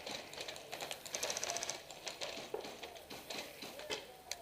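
Faint bursts of distant airsoft gunfire: rapid, even clicking volleys from electric airsoft guns, the clearest burst about a second in, with scattered single shots around it.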